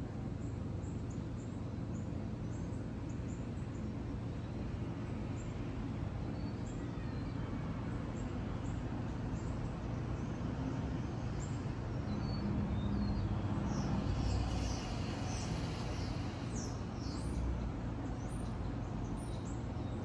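Small songbirds twittering in the trees: short, high chirps scattered throughout, coming thickest a little past the middle. Underneath is a steady low rumble.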